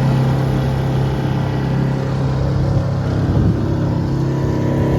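Small jon boat's motor running at a steady speed, with a low, even drone and rushing noise around it as the boat travels.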